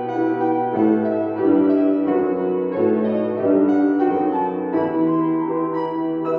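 Solo instrumental music: a melody moving over held bass notes, played steadily without a break.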